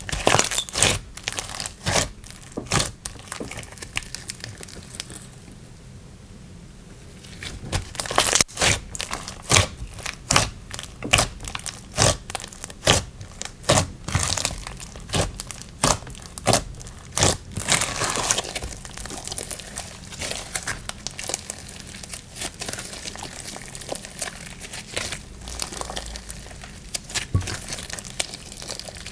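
Slime being squeezed and pressed by hand, giving a run of sharp crackling pops and snaps. There is a short lull about four seconds in, then the pops come thick and loud before thinning out toward the end.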